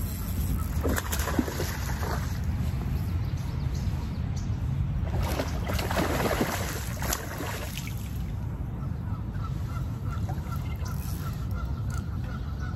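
Waterfowl honking a few times, the calls loudest about five to seven seconds in, over a steady low rumble.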